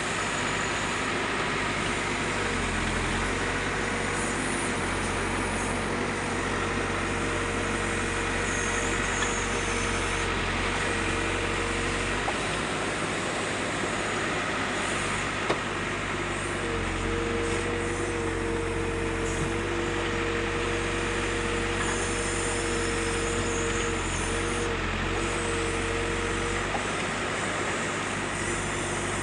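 Backhoe loader's diesel engine running steadily while digging. Twice, for long stretches of several seconds, a pair of steady whining tones comes in over a heavier low rumble as the machine works under load.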